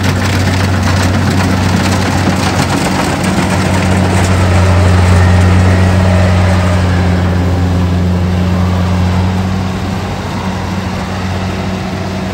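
Kubota rice combine harvester running as it cuts rice, a loud steady engine hum with machinery noise over it. It is loudest about halfway through as it passes close, then eases off as it moves away.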